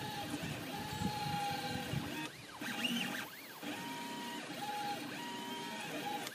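3D printer stepper motors moving the print head and driving the peristaltic icing pump, whining steadily with tones that sweep up and down as moves speed up and slow down, with a couple of brief pauses between moves.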